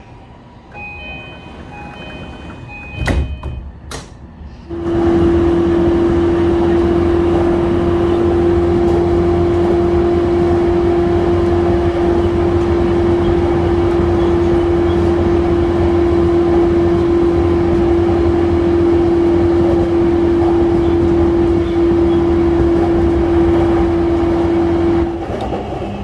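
Inside a JR East E235-series electric commuter train running at speed: loud rumble of wheels on rails with a strong, steady hum. Before it, a few seconds of quieter departure sounds with two sharp knocks, then the running noise rises suddenly about five seconds in.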